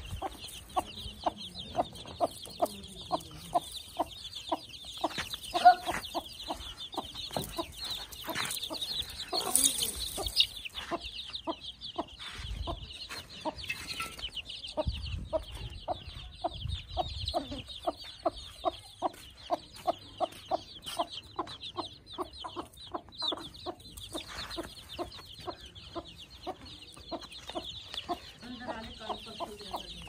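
Aseel hen clucking steadily in short low notes, about two or three a second: a mother hen's contact clucking to her brood. Her chicks cheep continuously and high over it.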